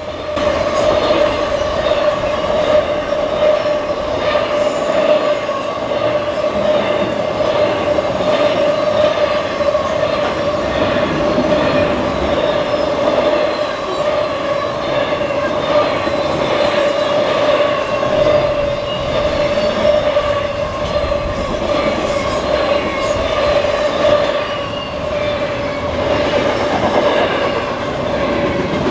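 Intermodal freight train cars rolling past at speed, a steady rumble and rattle of wheels on rail, with a steady high tone running through it.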